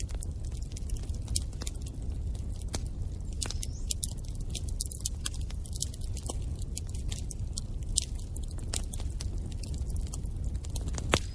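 Wood fire crackling in a fireplace: a steady low rumble of flames with frequent irregular sharp pops and crackles.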